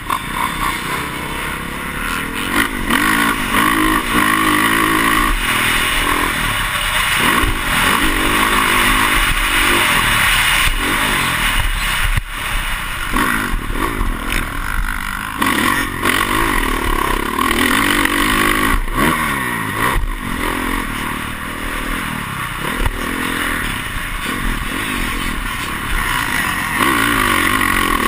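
Motocross dirt bike engine heard from a camera mounted on the bike, revving up and down over and over as it is ridden hard around the track. A few sharp knocks come through as the bike rides over the rough ground.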